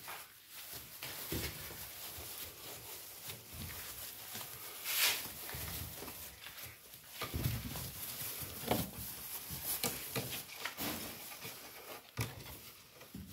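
Golden retriever puppies scrambling through shredded-paper bedding: the paper strips rustling and crackling without a break, with a louder crackle about five seconds in and a few soft puppy noises among it.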